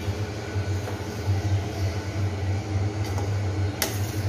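A steady low electrical hum, as from a running fan or appliance motor, with one short sharp clatter about four seconds in.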